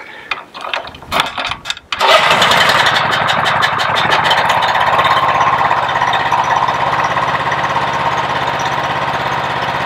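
Honda GX390 single-cylinder engine on a homemade air compressor, cranked with the choke on. It catches about two seconds in and settles into a steady run. The compressor pump is unloaded, so the engine warms up without load.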